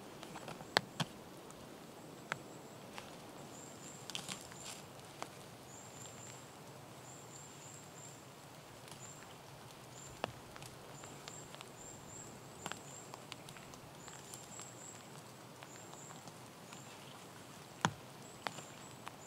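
Quiet forest ambience. A small bird gives very high-pitched short chirps, repeated in quick groups throughout. Scattered sharp snaps and rustles come from someone working by hand in ferns and undergrowth, the loudest about a second in and near the end.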